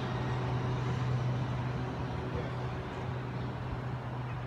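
Class 395 Javelin electric multiple unit pulling away from the platform, its steady low electrical hum and rolling noise slowly fading.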